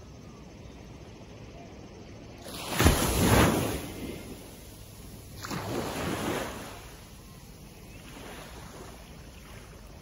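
Small waves breaking and washing up a sandy beach on a calm sea: two gentle breakers, the louder one about three seconds in and a softer one around six seconds, each a short rush of surf that fades away.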